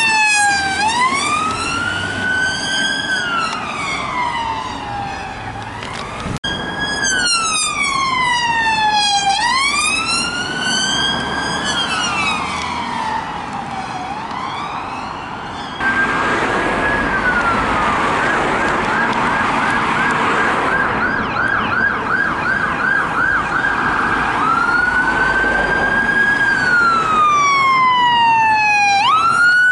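UK emergency vehicle sirens from police vehicles and a fire engine: a two-tone wail rising and falling about every two to three seconds, changing past the middle to a fast yelp of several sweeps a second, then back to the wail.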